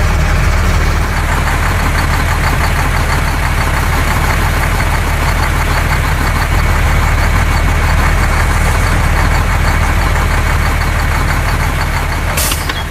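Truck engine running at a steady idle, a deep, even rumble. A brief hiss comes near the end as the engine sound begins to fade.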